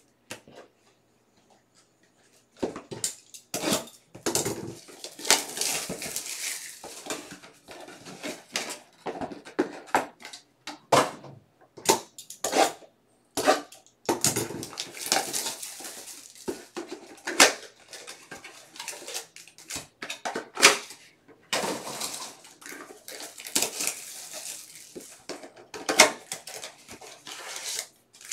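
Plastic wrap and the packaging of a trading-card hobby box crinkling and crackling as the box is unwrapped and opened and its foil card packs are handled, with many sharp taps and clicks. It starts about two and a half seconds in.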